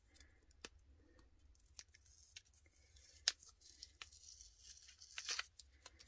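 Faint rustling and sharp little clicks of washi tape as its end is picked loose and peeled back from the roll, with one louder click about three seconds in.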